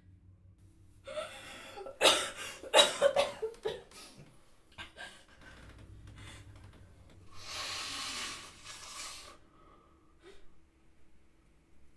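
A person gasping and breathing hard: a run of sharp, ragged gasps about a second in, then one long heavy breath out a few seconds later.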